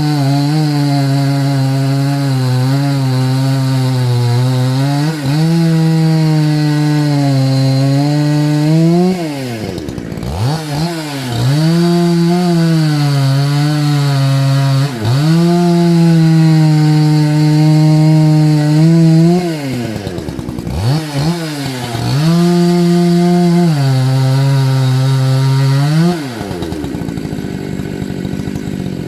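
Dolmar PS-9010 90 cc two-stroke chainsaw at full throttle cutting wood, its pitch sagging and wavering under load. The revs fall away and climb again twice, about ten and twenty seconds in, and drop to a lower idle near the end.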